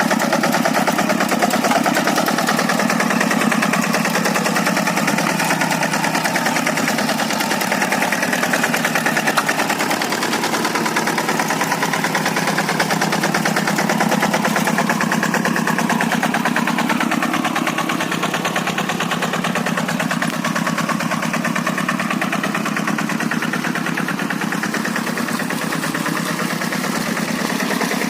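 Kubota single-cylinder diesel engine of a Quick hand tractor running steadily, with a fast even chugging beat.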